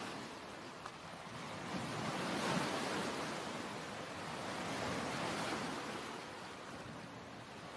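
Ocean waves washing in and ebbing, swelling twice in slow surges.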